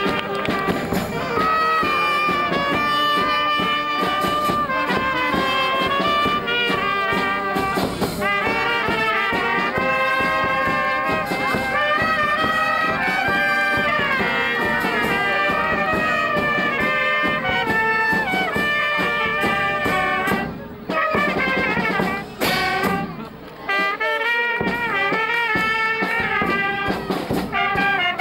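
Brass band playing a tune; the music drops out briefly a few times about three-quarters of the way through.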